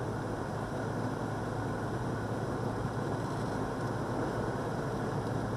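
Steady road noise inside a moving car: a constant low engine drone with tyre noise on asphalt.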